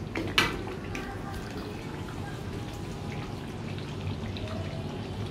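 Red chilli sambal frying in oil in a wok, bubbling and spitting with a steady crackle as it cooks down until fragrant. A metal spatula clicks against the wok twice near the start.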